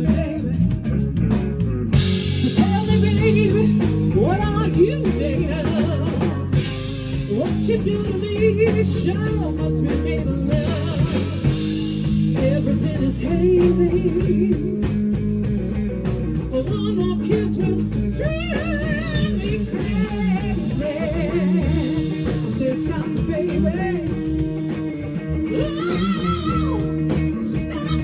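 Live soul-blues band playing: a woman sings a strong lead vocal over electric guitar, electric bass and a drum kit.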